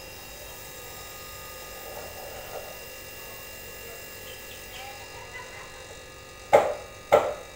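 Refrigerator compressor running with a steady, faint buzz while refrigerant is charged into the sealed system. Two short loud sounds come near the end.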